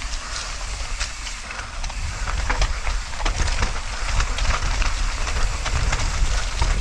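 Mountain bike rattling and clattering over a rough, muddy trail, with many quick knocks from the bike over the bumps and tyre noise, and a low rumble of wind on the helmet-camera microphone.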